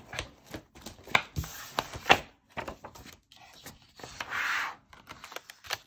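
Paper planner pages being handled and pressed onto the discs of a disc-bound planner: paper rustling and sliding, with a string of sharp clicks, the loudest about two seconds in, and a longer rustle about four seconds in.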